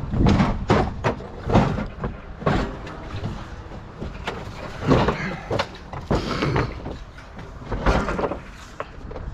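Irregular thumps, knocks and scraping of a hot water heater being handled and loaded into a pickup truck bed.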